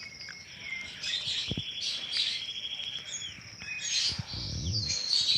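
White-rumped shama (murai batu) nestlings begging while being hand-fed: rapid, high-pitched chirping with a buzzy, pulsing trill. There is one soft thump about a second and a half in.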